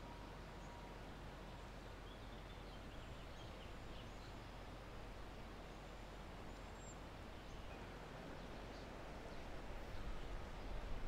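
Quiet outdoor ambience: a steady hiss of background noise with a few faint bird chirps. A low rumble builds near the end.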